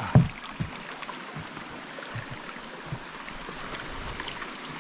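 Footsteps of a hiker going down a steep dirt trail: a few dull thumps, the loudest just after the start, over a steady hiss.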